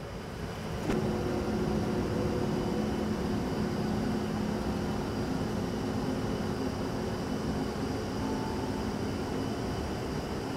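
Large 200-pound-capacity industrial tumble dryer starting up after the start button is pressed: a click about a second in, then the drum motor and fan running with a steady hum.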